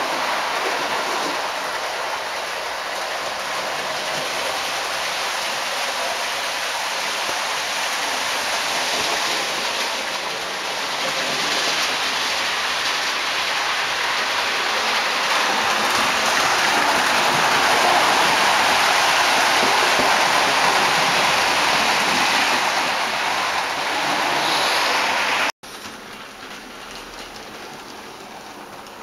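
Model railway trains running on the track: a steady rolling whirr and rumble of small wheels on rails and the locomotives' motors. About 25 seconds in it drops off abruptly to a much quieter level with a few faint ticks.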